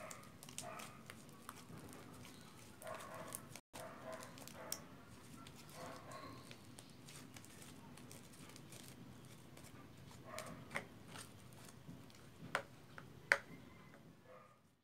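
Hands kneading and stretching soft white slime, giving faint sticky squishing with small crackling pops and a few sharper snaps near the end.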